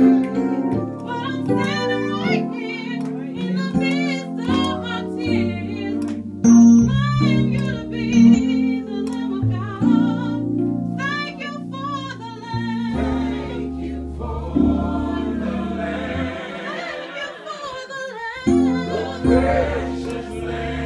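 Music: a voice singing with wide vibrato over held low instrumental notes.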